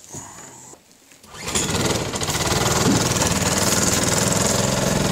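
A 5.75 hp Briggs & Stratton four-stroke lawn mower engine, converted to drive an outboard lower unit, running steadily under way. It comes in suddenly about a second and a half in, after a quiet stretch with a few faint clicks.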